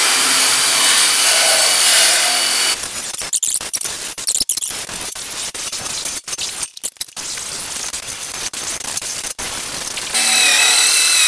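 Wire wheel brush spinning in a cordless impact driver, scrubbing surface rust off the sheet-metal grille of a Farmall Super M. It opens with a steady high whine. From about three seconds in it turns to a rough, choppy rasp with many short breaks as the brush works the metal. Near the end the clean whine returns.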